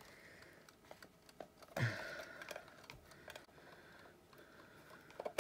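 Small clicks and light scrapes of hands working the metal casing of a wind-up alarm clock as the back cover is worked loose, with a knock about two seconds in and a sharp click at the very end.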